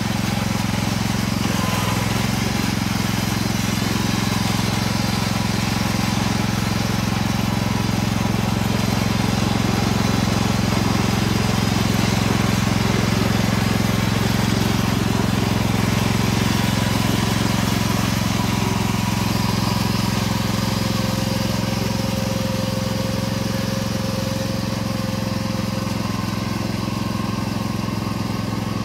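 Craftsman riding lawn mower's small engine running steadily under load as the mower drives through mud and standing water.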